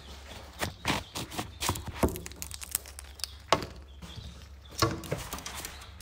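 An Indian ringneck parrot clicking and tapping right at the microphone with its beak and feet as it handles food: an irregular run of sharp clicks, with a low steady hum underneath.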